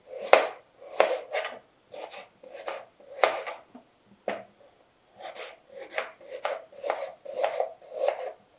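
Kitchen knife slicing through an onion onto a plastic cutting board: a steady run of crisp cuts, about two a second, with a short pause a little past the middle.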